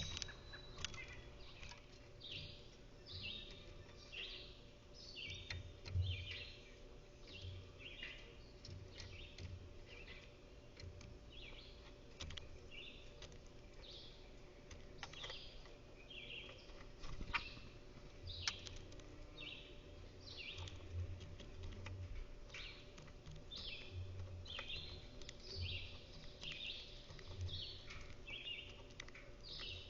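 Small birds chirping in short, rapid calls, several a second throughout, with scattered sharp clicks and a few low thuds.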